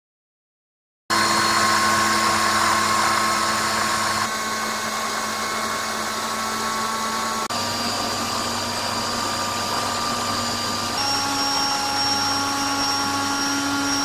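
Canister vacuum cleaners running with an air-powered turbo brush spinning under suction, heard in four back-to-back runs that cut abruptly from one to the next, starting about a second in. Each run has a steady whine at its own pitch: the faster the turbine brush spins, the stronger the suction. The last run is the highest-pitched, on the machine shown at 517 air watts.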